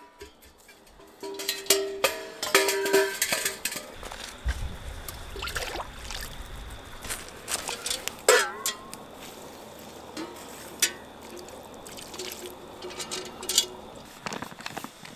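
Stainless steel camp cookware and a wood-burning camp stove clanking as they are knocked and handled, several knocks leaving a short metallic ring. A low rumble a few seconds in, and scattered clatter near the end.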